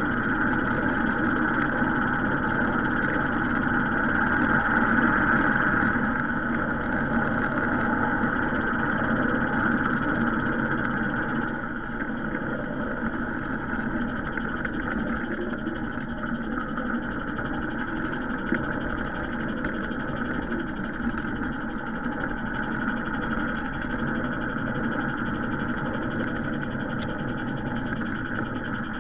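Garden railway train running along the track, picked up from on board: a steady mechanical hum and running noise, dropping a little in loudness partway through.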